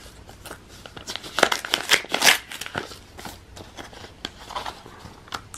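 A paper envelope being torn open by hand, the paper rustling and crackling, with a cluster of sharp rips about halfway through.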